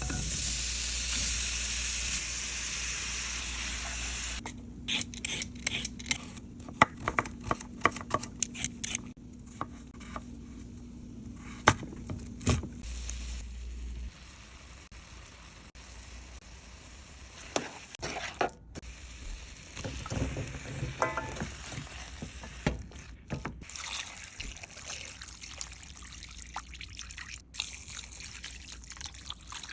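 Cooking sounds from a pot of soup being made: a steady hiss for the first few seconds, then a run of sharp clicks and knocks of utensils against cookware, with pouring and stirring.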